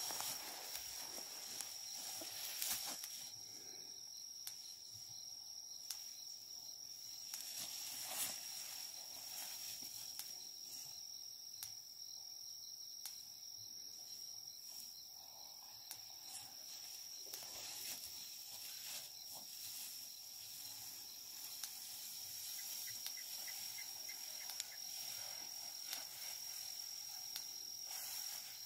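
A steady high-pitched insect chorus, with scattered brief rustles and knocks as a young elephant tosses and drags a long garden water pipe through dry grass.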